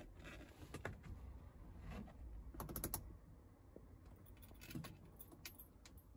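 Faint clicks and a jingle of keys as the ignition key and dashboard controls of a 1964 Morris Minor are handled, the key turned to switch the ignition on before starting; a short cluster of rattling clicks comes about three seconds in.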